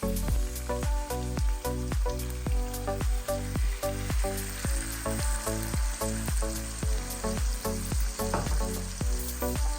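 Chitol fish dopiaza frying and sizzling in hot oil in a pan, under background music with a steady beat.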